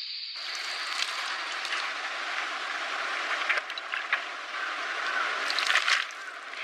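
Steady outdoor background noise, like distant traffic, that starts abruptly a moment in, with a few light clicks and rustles over it.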